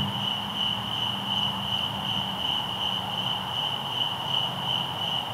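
Steady chorus of night insects such as crickets, one high, unbroken, slightly pulsing trill, over a faint low hum.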